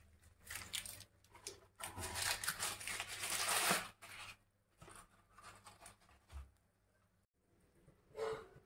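Crackling, rustling noise from bread sandwiches toasting on a hot flat tawa. It is loudest from about two to four seconds in, fades, and comes back briefly near the end.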